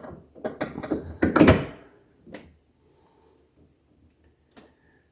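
Plastic clicks and knocks as the freezer drawer glide bar and gear of an LG French door refrigerator are slid into place, loudest about a second and a half in, followed by a couple of single light clicks.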